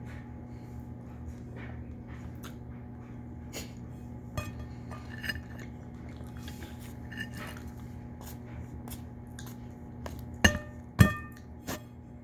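Tableware clinking: dishes and glass knocked lightly on a table every second or so, then two loud sharp clinks near the end, over a steady low hum.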